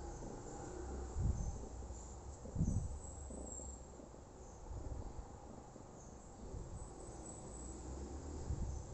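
Crickets chirping faintly and steadily in the background, with a couple of low, dull handling thumps about a second in and again near three seconds.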